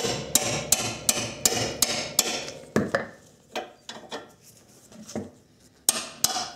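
A wooden-handled hammer striking the end of a steel box-end wrench, sharp metallic blows about three a second, knocking loose the seized nut on a Subaru front stabilizer link. The blows thin out to a few lighter taps as the wrench is repositioned, then the steady hammering resumes near the end.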